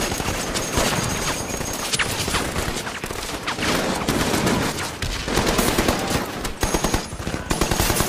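Battlefield gunfire: many rifles and machine guns firing at once, with rapid machine-gun bursts growing denser in the second half.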